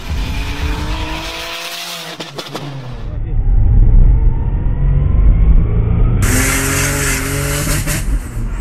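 Turbocharged 3.8-litre Buick V6 of a Holden VR Commodore ute revving and accelerating, heard from inside the cabin. The sound is cut between clips, muffled for a few seconds in the middle before turning loud and bright again with the engine rising in pitch.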